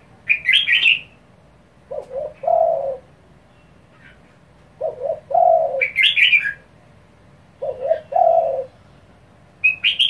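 Caged spotted dove cooing three phrases in quick succession, each two short notes and then a longer coo: the fast, urgent calling used to rouse other doves. Sharp, higher chirps come between the coos, three times.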